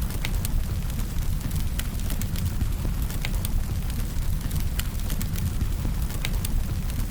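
Firewood burning: a steady low rumble of flames, with sharp crackles and pops at irregular moments, roughly one every second.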